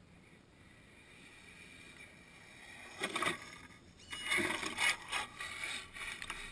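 Radio-controlled truck driving over sandy, gritty pavement toward the microphone, its tyres scraping and throwing grit in uneven bursts that start about three seconds in and grow louder.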